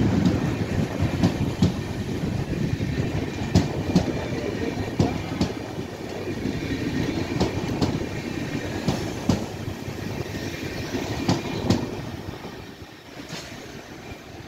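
Express passenger train coaches rolling past at speed, their wheels clacking over rail joints with a steady rumble. The sound fades near the end as the last coach moves away.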